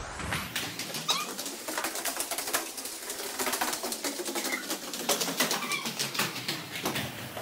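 Inline skate wheels rolling and clattering over a hard stone-tiled floor, with frequent sharp clicks and knocks as the skates strike the tiles, and a few short high squeaks.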